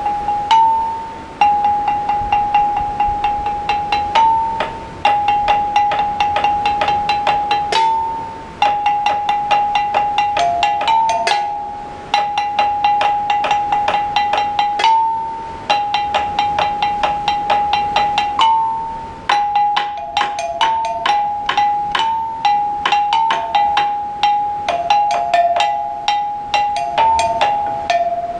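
Music built on a rapidly repeated bright, pitched note that steps between a few neighbouring pitches, with a brief break and restart of the phrase every few seconds.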